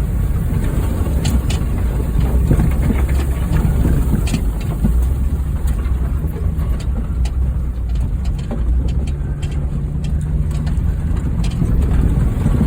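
Honda Fit's four-cylinder engine running with a steady low drone as the car drives over a rough dirt trail, with scattered short clicks and knocks throughout.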